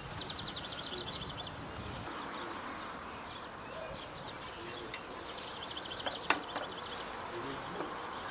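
A small songbird singing two rapid trilled phrases, each dropping from a high note into fast repeated notes: one at the start and another about five seconds in. A single sharp clink about six seconds in.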